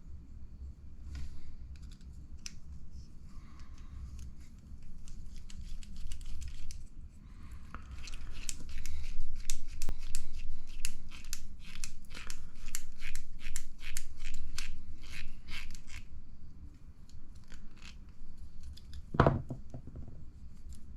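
Small hand tools and plastic and metal RC buggy parts being handled during assembly: scattered scrapes and clicks, then a run of sharp clicks at about three a second, and a single knock near the end.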